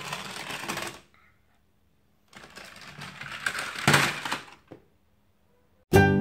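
Small plastic toy car rolling down a plastic ramp track, a rattling clatter of its wheels that stops about a second in. A second rattling run starts a couple of seconds later, peaks near the four-second mark and dies away. Music begins at the very end.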